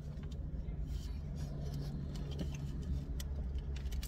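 Steady low hum of a car engine idling, heard from inside the closed cabin, with a few faint ticks over it.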